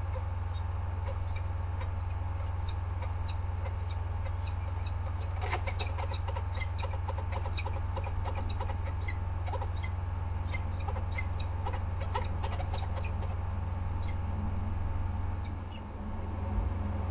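Peregrine falcons calling at a nest box: a run of short, rapid, repeated chirping calls from about five seconds in until about thirteen seconds, over a steady low hum.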